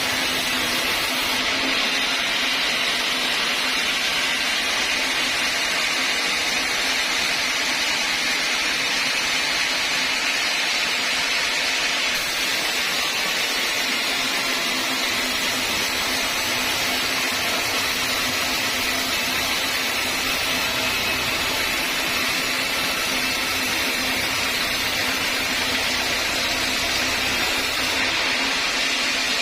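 Sawmill saw running steadily, a constant loud machine noise with a steady low hum underneath.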